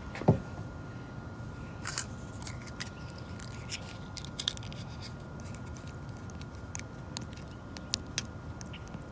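Razor blade scraping and ticking at a chip in a car windshield to clear out loose glass fragments, in many short scratches and clicks. A single loud thump comes just after the start, over the steady hum of the idling car with its heater running.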